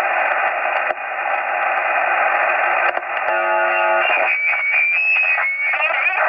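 Shortwave receiver in upper-sideband mode: steady hiss and static fill the narrow voice band, a brief buzzy tone sounds about three seconds in, and then wavering, garbled sideband signals take over.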